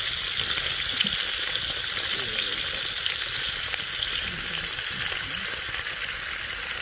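Fish frying: a steady sizzling hiss with scattered small crackles and pops.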